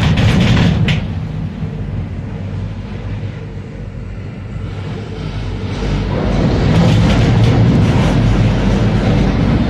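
Maokong Gondola cabin rumbling and rattling as it rides along its cable. The noise eases off for a few seconds, then builds again about six seconds in.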